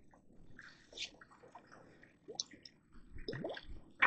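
Faint, scattered wet splashes and drips with small clicks, as a just-caught catfish is landed at the water's edge.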